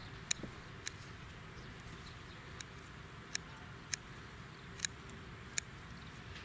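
Scissors snipping through garlic chives: about seven short, sharp clicks at irregular spacing over a faint steady hiss.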